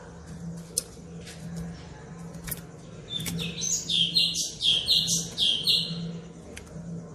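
White-rumped shama calling and singing: a few sharp, isolated chips, then from about three seconds in a quick run of repeated high notes lasting nearly three seconds. This is a lure recording meant to provoke a captive shama into answering.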